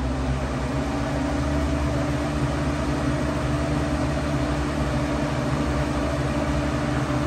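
An electric motor in a mains appliance runs steadily on the power station's AC output, making a loud, even whirring hum. It has just spun up and is drawing under 200 watts.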